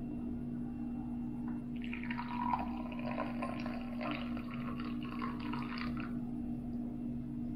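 Brewed coffee poured from a glass server into a ceramic cup: a splashing trickle that starts about two seconds in and lasts about four seconds, over a steady low hum.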